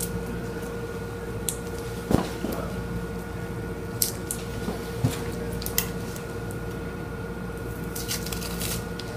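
Gloved hands handling small surgical instruments at a toe: light rustling and a few sharp clicks at irregular moments, with a cluster near the end, over a steady electrical hum.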